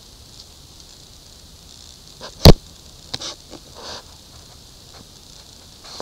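Handling noise: one sharp, loud knock about halfway through, followed by a few softer taps and rustles.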